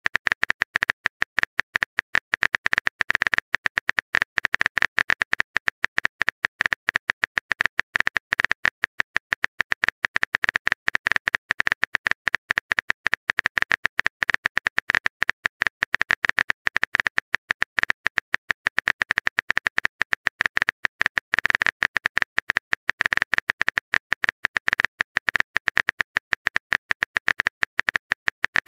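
Simulated phone-keyboard typing sound effect: rapid, even keystroke clicks, many a second, as a message is typed out letter by letter.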